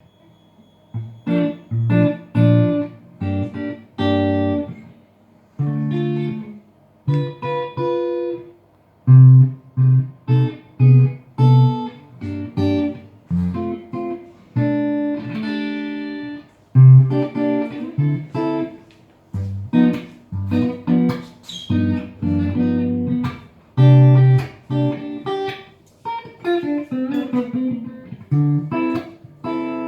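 Ibanez Artcore hollow-body electric guitar being played: short plucked chords with gaps between them, turning in the second half into more continuous chord-and-note lines.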